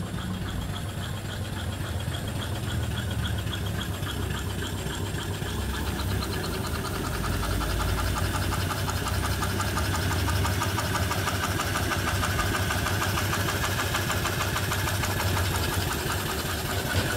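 Single-cylinder reproduction 1880s-style steam engine (3-inch bore, 4-inch stroke) running steadily under steam from its boiler, with a fast, even beat. It grows a little louder about seven seconds in.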